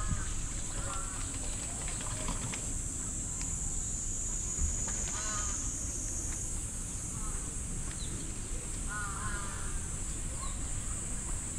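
Waterfowl on a pond giving short honking calls a few times, over a steady high-pitched insect drone.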